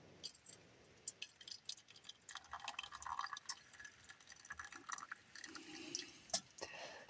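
Faint, light clicks and clinks mixed with small liquid sounds from a hot drink in a cup.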